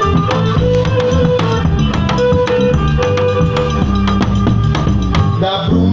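Live forró de rabeca band playing an instrumental passage between verses: a fiddle melody of held notes over bass guitar and a steady drum beat.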